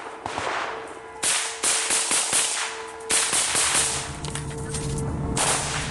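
Close-range rifle fire: quick bursts of sharp cracks, about a second in, again around two seconds, a longer burst around three seconds, and a short one near the end.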